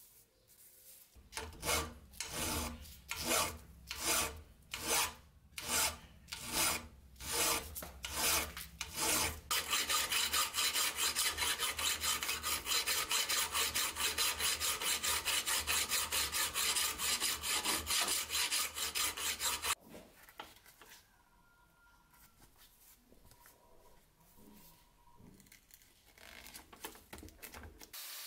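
Hand file scraping across the steel blade of a meat cleaver clamped in a vise: slow strokes, a little over one a second, then from about ten seconds in a fast, even run of strokes that stops abruptly about twenty seconds in, leaving only faint handling sounds.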